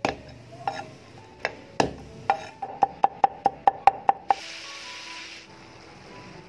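Cleaver chopping garlic on a wooden chopping board: a few spaced chops, then a quick run of about five chops a second, each with a short ringing tone. The chopping stops about four seconds in and is followed by a brief hiss, with light music beneath.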